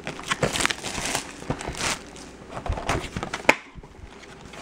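Cardboard trading-card box being handled and opened: uneven rustling and scraping of cardboard and plastic wrap, with one sharp snap about three and a half seconds in.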